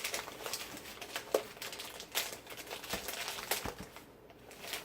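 Plastic bag of rice crinkling and rustling as it is opened and handled, in irregular crackles.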